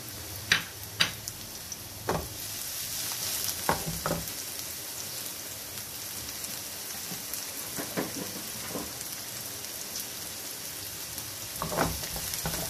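Chopped onions sizzling in a little oil in a non-stick frying pan, being lightly softened; the sizzle grows louder after about two seconds. A few sharp clicks are scattered through, and near the end a wooden spatula scrapes and knocks in the pan as the onions are stirred.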